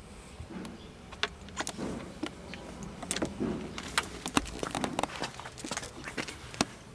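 Irregular light clicks and jingles from an old Shiba Inu moving about on concrete: the metal clip of her collar and leash rattling and her claws tapping, coming thicker in the second half.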